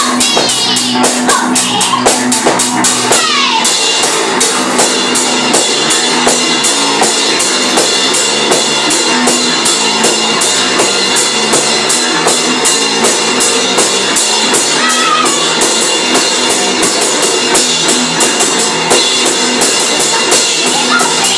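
Live band playing: electric bass guitar and a drum kit with cymbals, hit from a standing position, keep up a fast, steady beat.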